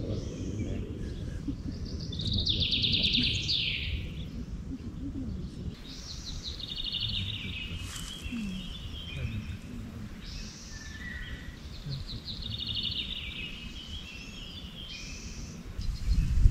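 A songbird singing: three phrases a few seconds apart, each a fast trill that drops in pitch, over a steady low rumble.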